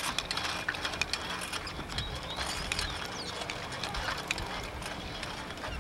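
Bicycle ticking and rattling as it is ridden, with many irregular sharp clicks.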